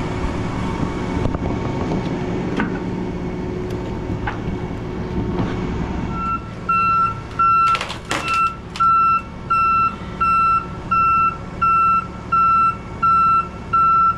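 Truck engine running at a steady low rumble. About six seconds in, a truck's backup alarm starts beeping, about one and a half beeps a second, as the vehicle reverses. A short burst of harsh noise comes about two seconds after the beeping starts.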